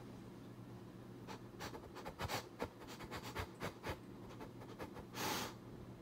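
Faint scratchy rubbing with a string of light clicks, as a plush toy's fur brushes and nudges against a clear plastic food tub, then a short breathy hiss about five seconds in.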